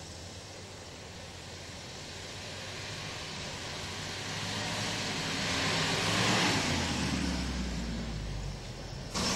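Opel Manta's engine running as the car drives over snow toward and past the listener. It grows louder to a peak about six seconds in, then its pitch drops as it goes by.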